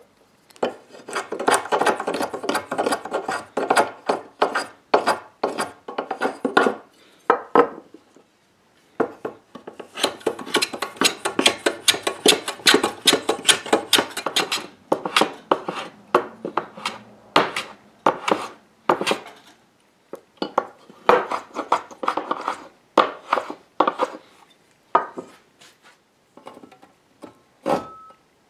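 Hand plane shaving down an oak patch set into a tabletop edge, in quick short strokes with a couple of brief pauses. The strokes thin out to a few scattered ones near the end.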